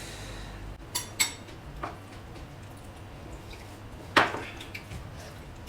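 Cutlery clinking against plates and bowls a few times, the loudest clink about four seconds in.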